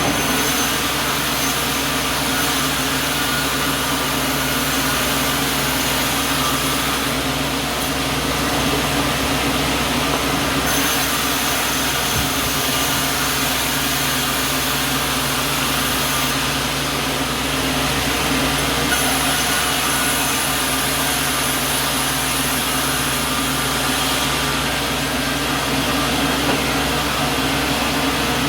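Small wood sawmill running steadily: a continuous motor hum with an even rushing saw noise, holding the same level throughout.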